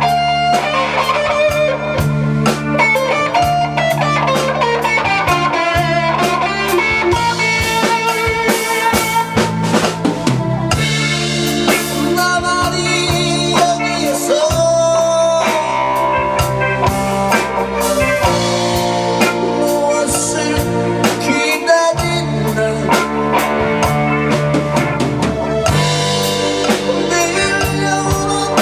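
Live band playing an instrumental break in a blues-rock style: an electric guitar plays a melodic lead over a drum kit with rimshots.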